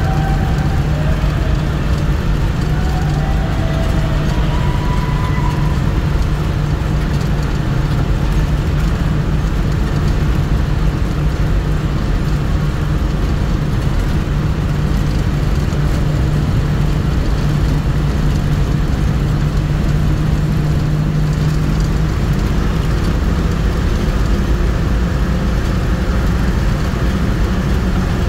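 A vehicle driving through a road tunnel: steady engine hum and road noise, with a low drone that eases off about twenty-two seconds in.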